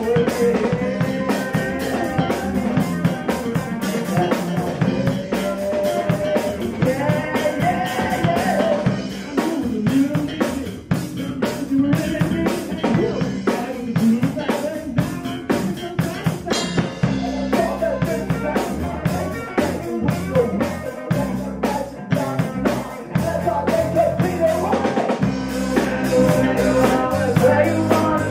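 A rock band playing live: a drum kit keeping a steady beat with bass drum and snare under electric guitars.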